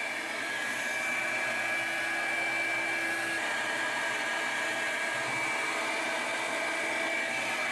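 Revlon blow-dryer brush running steadily: a hiss of blowing air with a steady high whine from its motor.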